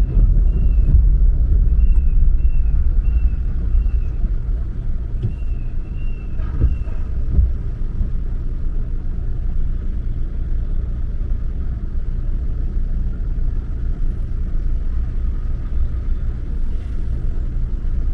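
Steady low rumble of a car driving. A faint high chirp repeats about twice a second during the first seven seconds or so.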